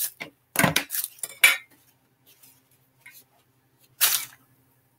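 Dishes and utensils clinking and clattering on a kitchen counter during cleanup: several quick knocks in the first second and a half, then another short clatter about four seconds in.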